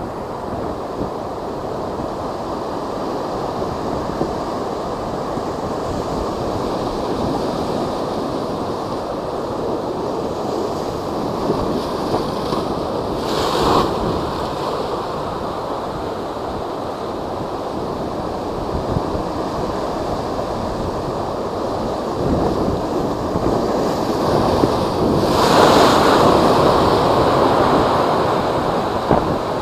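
Typhoon-driven high waves surging and breaking in a steady rush of surf, with wind buffeting the microphone. A big wave crashes about 13 seconds in, and a longer, louder one near the end.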